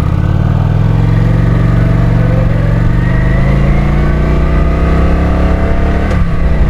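Kawasaki Vulcan 900's V-twin engine pulling under acceleration, its pitch rising steadily, then dropping about six seconds in at a gear change.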